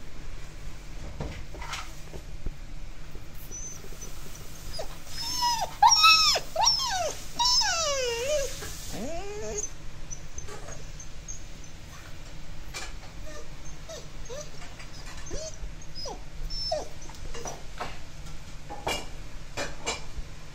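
Alaskan Malamute whimpering: a run of high, wavering whines about five seconds in, ending in a long falling moan, then a few faint short whimpers. The dog is frightened by a thunderstorm.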